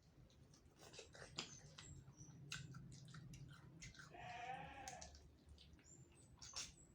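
Close-up chewing of chicken heads, with soft crunches of small bones and wet mouth clicks. About four seconds in, a short high-pitched vocal sound from the eater, lasting under a second.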